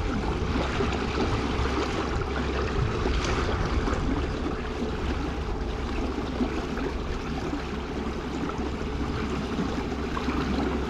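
Motorised fishing kayak underway across a lake: water rushing along the hull over a steady low motor hum.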